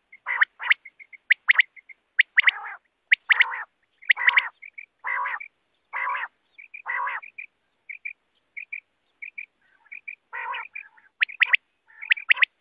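Common quail calling over and over: short, sharp high notes in quick clusters, mixed with harsher, lower calls about half a second long.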